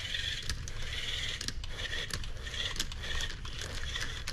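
RC rock crawler's electric motor and gearbox whining in short on-and-off bursts, with irregular clicks and scrapes as the tyres and chassis work against the obstacle it is trying to climb.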